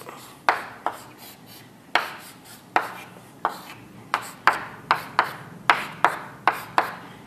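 Writing and drawing on a board: a run of sharp taps and short scraping strokes, coming quicker in the second half.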